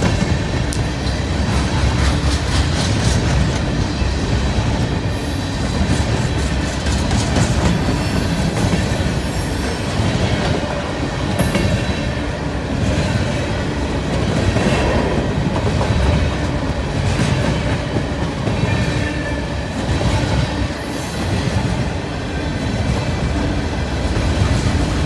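Empty coal cars of a freight train rolling past at speed. The steel wheels clatter over the rail joints in a continuous stream of clicks, with brief high-pitched wheel squeals a few times.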